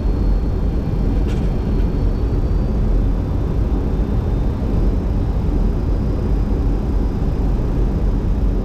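Steady rumble and rush inside a Boeing 737-200 cockpit on final approach: airflow and engine noise. There is a faint click about a second in.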